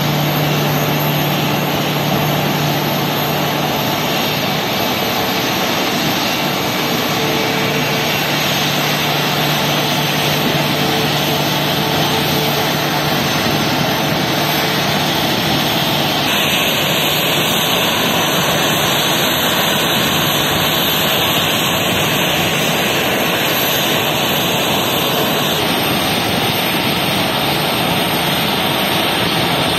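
Boeing 737 airliner's jet engines running at idle, a steady rushing noise, with a low hum under it for roughly the first twelve seconds.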